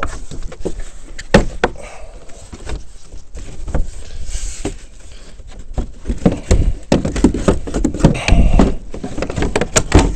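Plastic body panels of an ATV being pried and popped off by hand: irregular clicks, knocks and low thumps of plastic, busiest in the second half.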